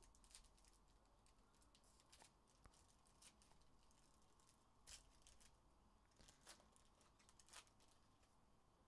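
Faint crinkling and tearing of a foil trading-card pack wrapper opened by hand, a string of short crackles with a few louder ones about five seconds in and again near the end.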